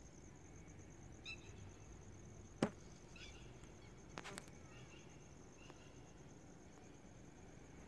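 A night insect chirring steadily at a high pitch in a fast, even pulse. A single sharp click about two and a half seconds in, a quick pair of clicks a little after four seconds, and a couple of faint short chirps are heard over it.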